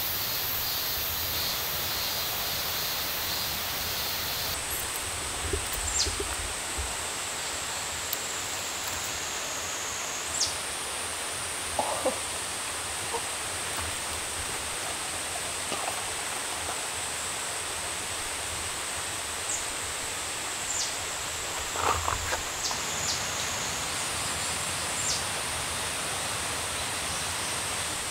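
Summer forest insects droning in a high steady trill over a steady hiss of background noise, the insect pitch shifting a few times, with a few soft knocks scattered through.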